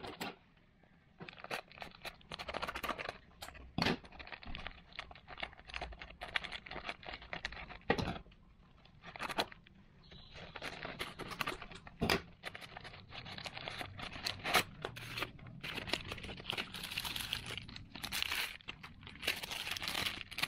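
Paper and plastic wrapping being torn and crinkled by hand while a small parcel is unwrapped, with sharp clicks and taps now and then.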